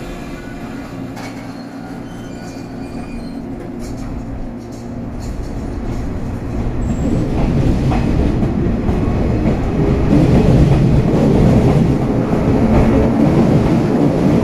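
Shinano Railway 115-series electric train pulling out of the station: a steady hum at first, then the running sound of its motors and wheels grows louder from about five seconds in as the cars pick up speed past the platform.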